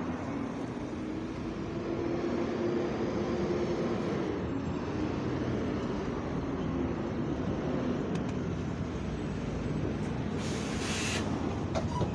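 Go-Ahead London SEN-class single-decker bus coming in and pulling up at the stop, its engine cooling fan running with a steady, Hoover-like drone over the traffic. A short hiss comes near the end as the bus stops.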